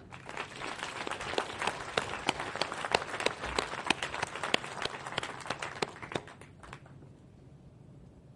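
Audience applauding, a dense patter of hand claps with a few sharper claps standing out, dying away about six to seven seconds in.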